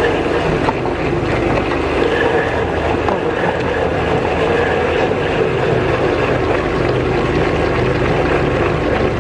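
Electric meat grinder (LM832 double-reamer model) running steadily, its motor making a constant even hum.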